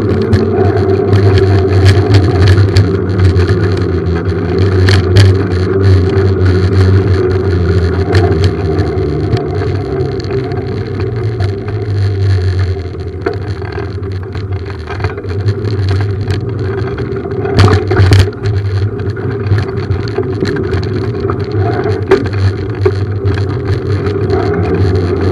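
Small engine running at a fairly steady speed while the bike rides along pavement, with scattered clicks and rattles from the ride and one louder knock about two-thirds of the way through.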